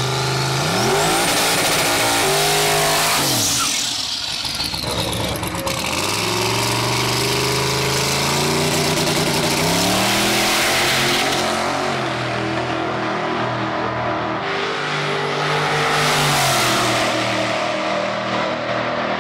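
Twin-turbocharged Chevrolet Silverado engine revving, with tyre noise and a rising turbo whistle in the first few seconds. Then it runs at full throttle down a drag strip, the pitch climbing and dropping back at each of several gear changes.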